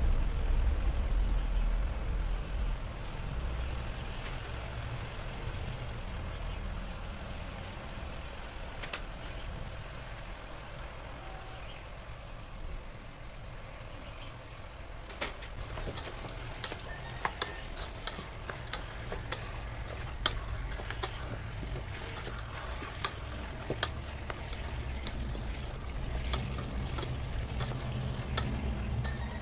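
Small bowls and wooden chopsticks knocking and clinking against an aluminium pot of raw chicken pieces as it is seasoned and stirred. The sharp clicks come scattered through the second half, over a steady low rumble.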